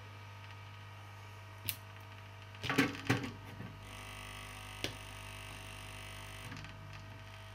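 Aoyue INT852A+ hot air rework station running with a steady low hum while heating a circuit board. A few clicks and knocks come about two to three seconds in, and a hiss lasts for about two and a half seconds in the middle.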